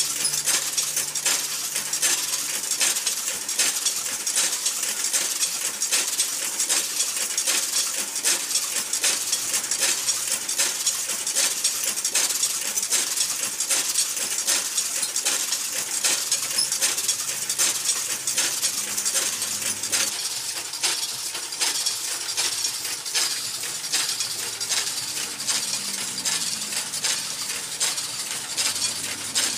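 Homemade plastic-mulch hole-punching machine running, a steady dense clatter of sharp metallic clicks and clinks.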